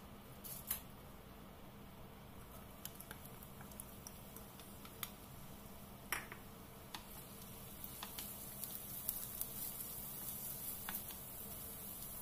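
Hot oil in a wok crackling faintly with scattered sharp pops; about six seconds in, chopped onion goes into the oil and a soft sizzle builds. A wooden spoon stirs the onion near the end.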